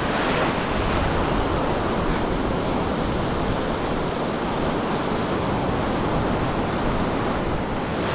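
Shallow ocean surf breaking and washing in foam right around the camera at water level, a steady rush of water.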